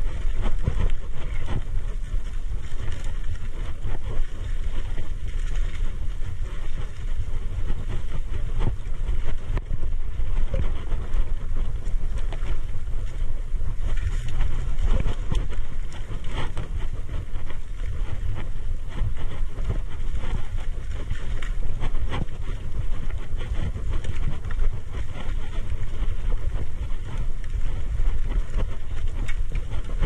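Mountain bike ridden over a dirt singletrack: wind buffeting the camera microphone over a steady low rumble of tyres on the trail, with frequent quick rattles and knocks as the bike goes over bumps.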